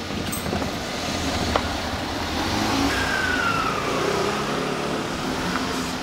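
A car engine running close by as the car moves slowly up to and across a railway level crossing. A falling whine passes through about three seconds in.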